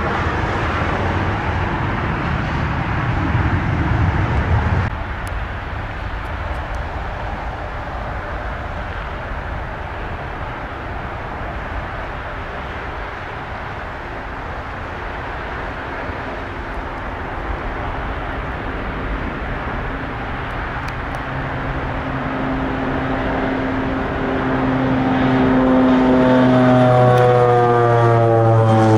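Jet airliner engines running with a steady roar that swells over the last few seconds as the aircraft comes in low overhead. Near the end, several whining engine tones fall in pitch as it passes.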